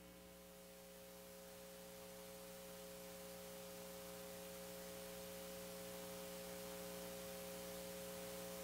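Steady electrical hum made of several fixed pitches over faint hiss, slowly growing louder.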